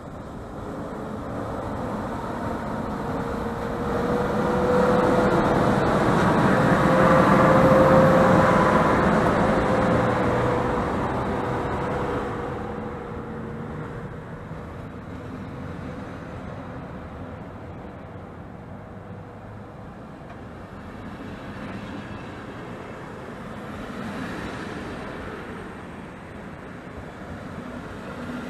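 An EP09 electric locomotive pulling an Intercity passenger train away from the platform. As it passes, a steady whine rises slightly over the rolling noise and is loudest about eight seconds in. The coaches then roll by with a lower, steady rumble.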